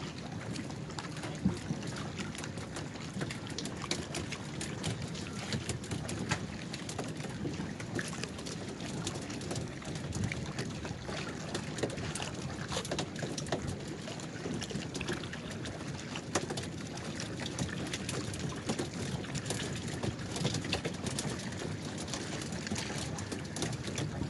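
Water splashing and lapping around small outrigger fishing canoes, with frequent short knocks and splashes from paddles and poles.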